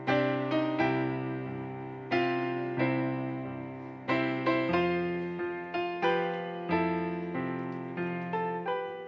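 Slow solo piano music: single notes and chords struck about twice a second, each ringing and fading before the next.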